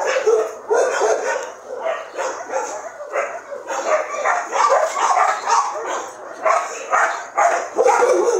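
Dogs barking and yipping in quick, irregular bursts, several calls a second, one call overlapping the next.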